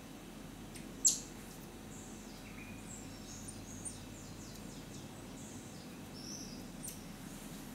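Steady faint forest background with scattered short, high-pitched chirps and trills, and one sharp, loud high chirp about a second in.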